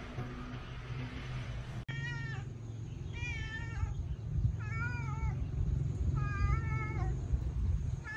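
Kitten meowing four times, about a second and a half apart, starting about two seconds in; each meow is high-pitched and drawn out. A steady low rumble runs underneath.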